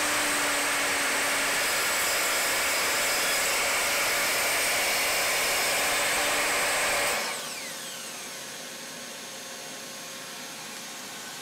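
Evolution R255SMS sliding mitre saw with a Saxton 80-tooth blade, running and crosscutting plywood. About seven seconds in it is switched off, and a falling whine follows as the blade runs down.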